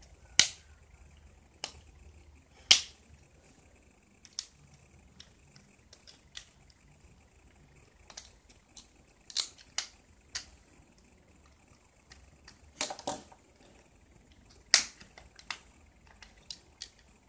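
Irregular sharp plastic clicks and snaps, a few much louder than the rest: the tight plastic housing of an LG S310 mobile phone being pried apart, its clips popping loose.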